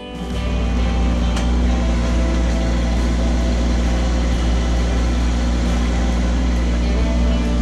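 Kubota B2601 compact tractor's three-cylinder diesel engine running steadily at working revs while the root rake grapple digs into the soil.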